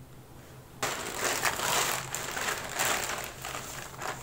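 A plastic courier mailer bag crinkling and tearing as it is ripped open by hand, starting about a second in.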